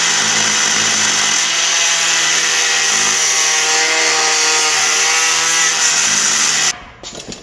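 Angle grinder with a cut-off wheel cutting through a rusted steel car frame rail, running steadily at a high whine under load. It stops abruptly near the end.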